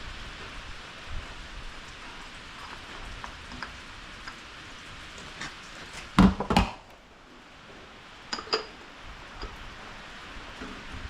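Steady rain hiss with metallic clanks and knocks of tools and parts being handled: a loud cluster about six seconds in and two sharper knocks a couple of seconds later.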